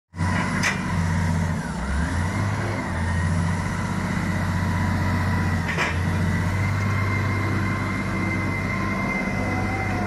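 Caterpillar 980C wheel loader's diesel engine running steadily under load as it works a large log with its fork, its note briefly shifting about two seconds in. Two sharp metallic knocks, one about a second in and one near six seconds.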